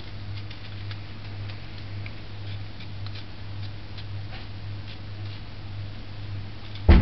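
Kitchen knife peeling the skin off a turnip by hand: faint, irregular clicks and scrapes of the blade over a steady low hum, with one loud thump near the end.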